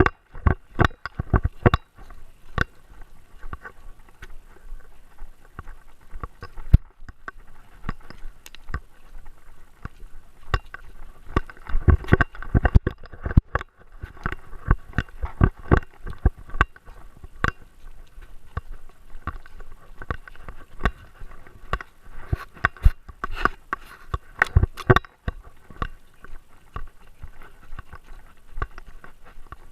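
Close-up, irregular clicks and knocks from a Great Dane carrying a camera on its body, coming in thicker runs in the middle and near the end.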